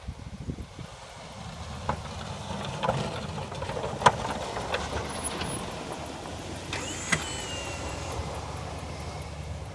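1996 GMC Z71 pickup's engine running with a steady low rumble that comes up about a second in. Several sharp knocks and clanks sound over it, with a brief high squeal about seven seconds in.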